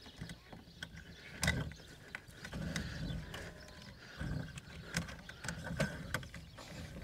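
A bundle of stranded building wire being worked through electrical conduit: irregular scraping and rubbing with scattered clicks and several dull knocks.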